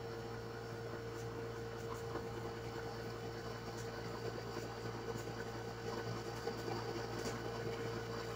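Steady low background hum in a small room, with a constant pitched tone and a few faint, scattered ticks.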